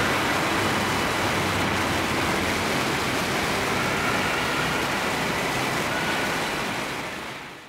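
Siemens Desiro electric train running away along the elevated track: a steady rushing rail noise with faint high whines, fading out near the end.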